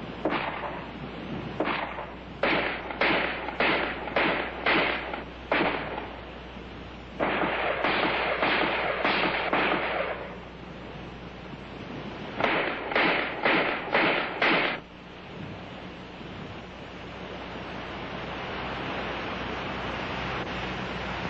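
ArmaLite AR-10 rifle, a 7.62 mm NATO battle rifle, firing: single shots about half a second apart, then a fast burst, then a few more quick shots. From about fifteen seconds in there are no shots, only a steady hiss that slowly gets louder.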